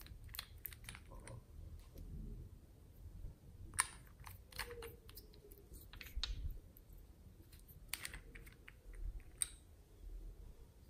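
Small plastic cosmetic bottles clicking and tapping as they are handled and their caps twisted, an irregular patter of light clicks with a few sharper snaps.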